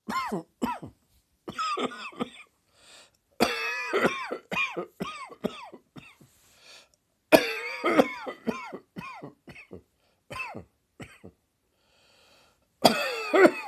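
A person's coughing fit, set off by a tickle in the throat: rapid coughs in bursts of several at a time, with brief pauses between the bursts.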